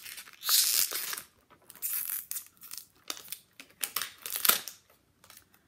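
Wrapping on an L.O.L. Surprise toy ball crinkling and tearing as it is peeled off by hand, in several short crackly bursts with brief pauses between.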